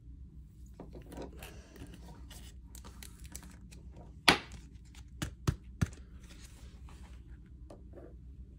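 Hockey trading cards and their pack wrapper being handled: rustling and crinkling, with one sharp snap a little over four seconds in and three lighter clicks about a second later.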